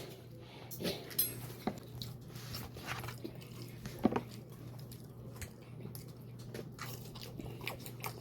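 A person chewing a McDonald's chicken nugget: scattered crunches and clicks over a steady low hum.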